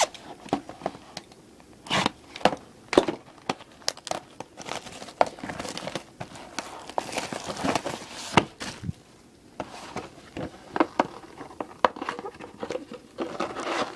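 Plastic wrap and cardboard of a box of trading-card packs being cut and torn open. Crinkling and rustling, broken by many sharp clicks and taps, with longer stretches of rustle near the middle and near the end.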